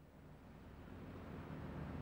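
A fishing boat's diesel engine running, a low steady hum that swells in gradually.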